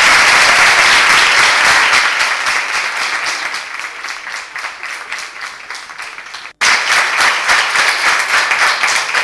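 Audience applauding, a dense patter of many hands clapping, loud at first and slowly thinning out. About six and a half seconds in it cuts off abruptly, then the applause comes back loud.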